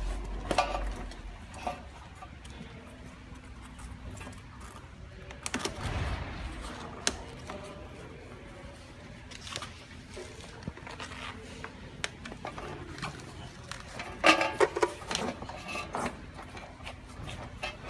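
Irregular clicks, knocks and rattles of something being handled, with a cluster of louder clinks about fourteen seconds in.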